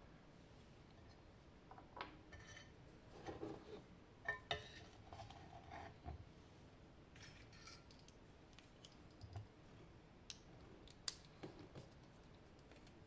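Faint scattered clicks and light metallic taps from a lock and its tools being handled, with two sharper clicks near the end.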